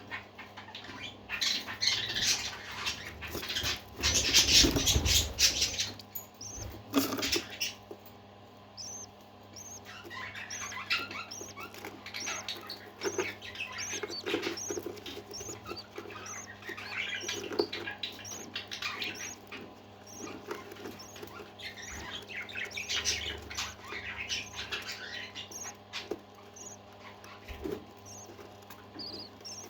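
Pet parakeets chattering and warbling in bursts, with short high chirps repeated about twice a second through the middle stretch. A brief loud noisy burst about four to five seconds in stands out above the birds.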